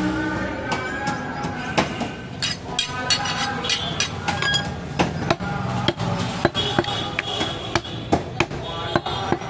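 Sharp, irregular knocks of blades striking wooden chopping blocks as goat meat is cut, about two a second, over a background of voices and music.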